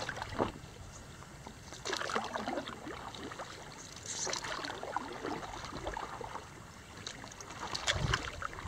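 Water splashing and sloshing around a stand-up paddleboard, in irregular bursts every couple of seconds as a paddle dips and moves through the water. Low wind rumble on the microphone near the end.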